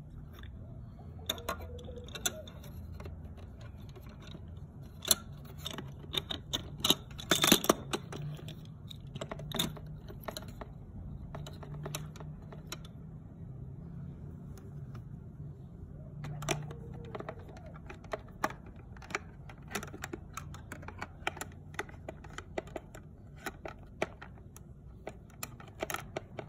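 Hard plastic toy pieces of a fold-up playhouse clicking and knocking as a hand moves and fits them in place: irregular taps throughout, with a quick flurry of clicks about seven seconds in.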